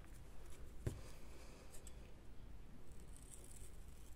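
Quiet handling of small paper pieces on a craft table, with a light tap about a second in and a soft paper rustle near the end.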